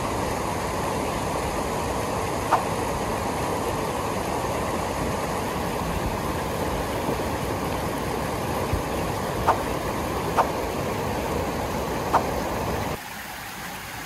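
Steady rushing of a small cascade in a rocky mountain stream, with a few brief chirp-like squeaks over it. The rushing drops off sharply about a second before the end.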